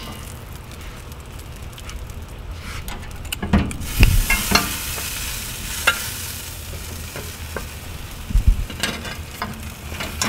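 Meat sizzling in a hot smoker, with metal tongs and a spatula clinking and knocking against the grate and a glass baking dish as a smoked leg is lifted out. The knocks come irregularly, the loudest about four seconds in.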